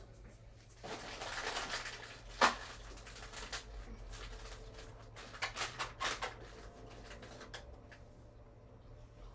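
Household handling sounds of people snacking: a crisp packet rustling, light clicks, and one sharper knock about two and a half seconds in.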